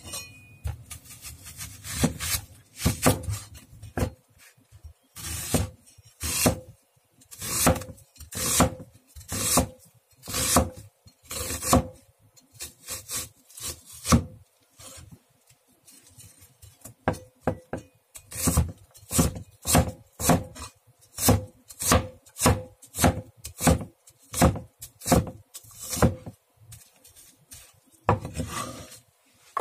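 Cleaver slicing through an onion on a wooden cutting board, each stroke a sharp knock of the blade on the wood, about one to two a second, with a pause of a few seconds about halfway.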